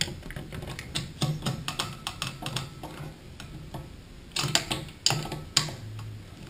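Screwdriver tightening loose screws on ceiling fan blade brackets: irregular small metallic clicks and taps as the tip seats in the screw heads and turns, with a louder run of clicks near the end.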